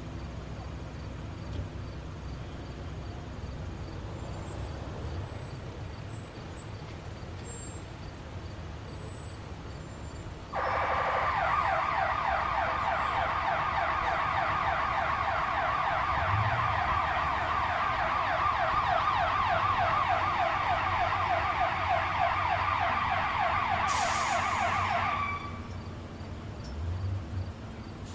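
Emergency vehicle siren in a fast up-and-down yelp, starting abruptly about ten seconds in and cutting off about fifteen seconds later, over a steady low traffic rumble.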